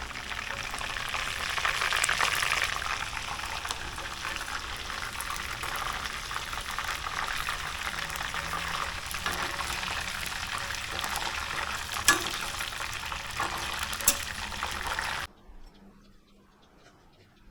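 Sago worms deep-frying in hot oil: a steady, dense crackling sizzle, with two sharp clicks near the end. The sizzle cuts off suddenly about fifteen seconds in.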